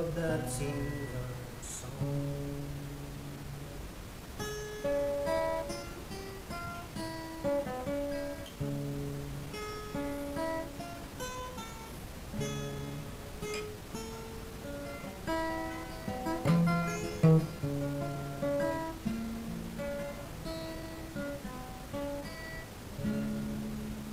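Solo acoustic guitar playing an instrumental passage of picked notes and chords, cutting off abruptly at the end.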